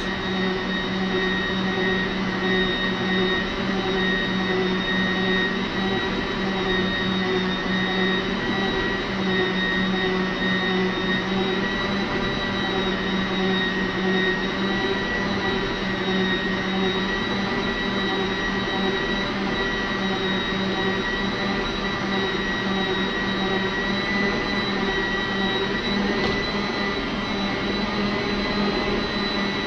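Arno Planetária Essencial stand mixer running steadily at high speed, its motor giving a constant hum with a high whine as the beater whips a thick, frozen ice-cream base in a plastic bowl.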